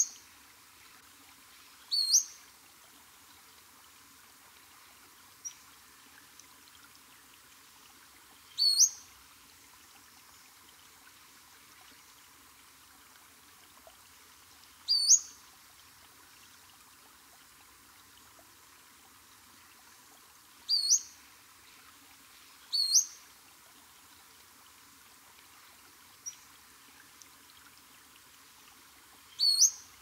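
Pacific-slope flycatcher calling: a short, high, sharply rising two-part note, repeated about every six seconds. A faint steady hiss runs underneath.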